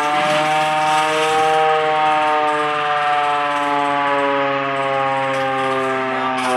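Air raid siren wailing loudly, a steady chord of several tones whose pitch rises a little at first and then slowly falls.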